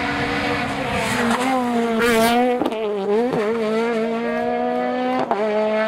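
Rally car's engine at full throttle, pitch climbing steadily with three short dips and recoveries as it approaches.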